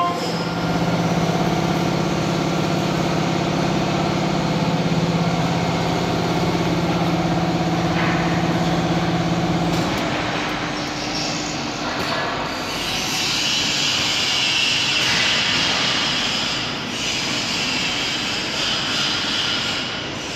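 CK6150 CNC lathe machinery running with a steady mechanical hum of fixed pitch that stops about ten seconds in, followed by a rougher, higher hissing noise.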